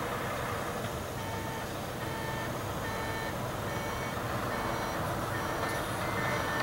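Electronic beeping tones at several pitches, each lasting a fraction of a second and repeating at intervals over a steady low background rumble.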